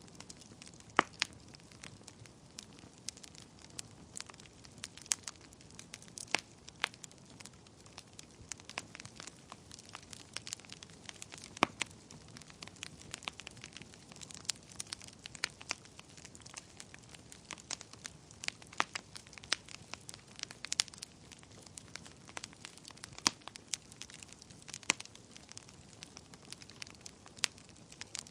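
Wood fire burning in a fireplace: a low steady hiss of flames with irregular sharp crackles and pops of burning logs, a few noticeably louder than the rest.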